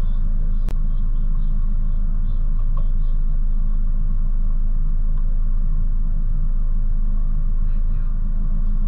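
Mazda Miata's four-cylinder engine idling steadily while the car waits at the start line, a low, even rumble. A single sharp click sounds just under a second in.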